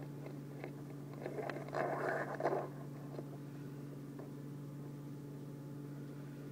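Nylon 550 paracord rustling and rubbing as a strand is threaded and pulled through a loop of the knot, a short scratchy rustle a little after a second in, over a steady low hum.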